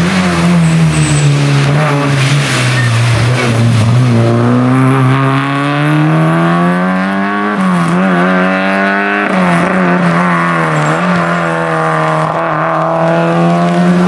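Rally car passing on a wet road. Its engine note drops as it slows for the bend, then rises as it accelerates hard away, with three upshifts about a second and a half apart, over the hiss of tyres on wet tarmac.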